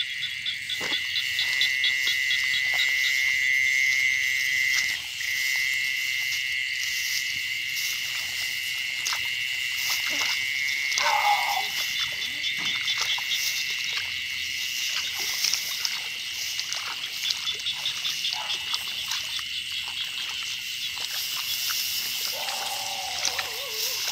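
Night chorus of frogs and crickets: a steady high chirring with a rapid pulsed trill in the first few seconds, dropping out for a moment about five seconds in.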